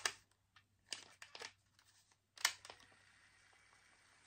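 Sharp plastic clicks and handling noise from the buttons of a personal cassette player being pressed: one click at the start, a short cluster about a second in, and another about two and a half seconds in.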